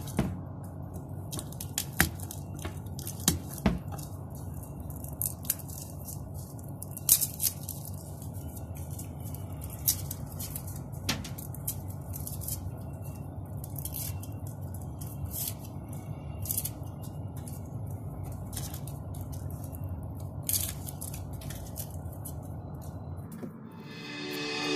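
Kitchen knife tapping and scraping on a plastic cutting board as garlic cloves are peeled, scattered sharp clicks over a steady low hum. Music comes in near the end.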